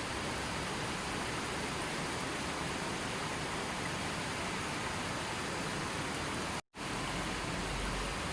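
Steady rushing water, an even wash of noise. It cuts out for an instant late on, then resumes.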